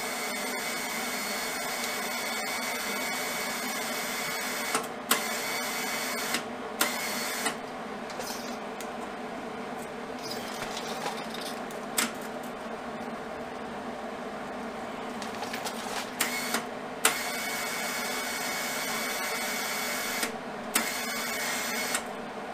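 Hobart Handler 140 MIG welder's wire-feed motor whining at a steady pitch as the gun trigger is held, feeding wire through the gun in runs of a few seconds that start and stop with a click: several runs in the first seven seconds and again from about seventeen seconds in. A steady machine hum runs underneath, with a few knocks of handling in the pause between.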